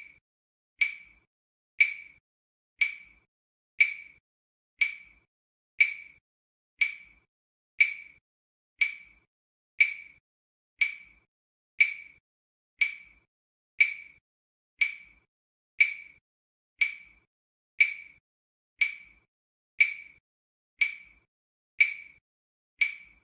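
Countdown-timer sound effect: a short, sharp, high-pitched tick repeating evenly about once a second, each one dying away quickly.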